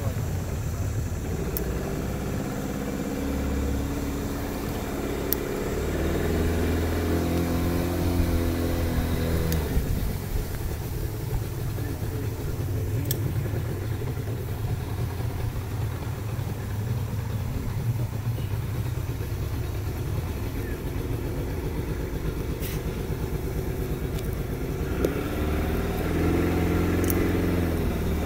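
Outboard motor pushing a canoe, running steadily, its engine tone clearest in the first ten seconds and again near the end.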